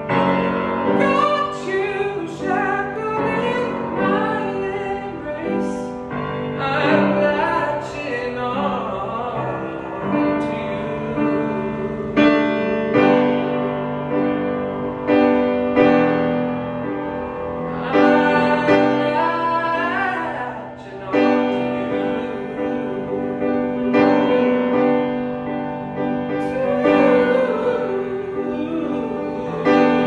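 A man singing solo with upright piano accompaniment, his voice sliding between and holding notes over steady piano chords.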